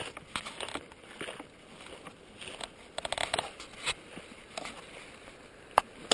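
Footsteps crunching over dry gravel and brittle brush: irregular crunches and scrapes, with a sharp click near the end.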